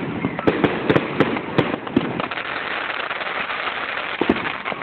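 Aerial fireworks going off. A quick run of sharp bangs gives way to a dense crackle of many small pops, and a couple more bangs come near the end.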